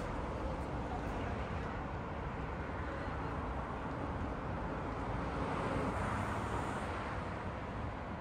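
Outdoor urban ambience: a steady hum of road traffic with low rumble, swelling a little about two-thirds of the way through as a vehicle passes.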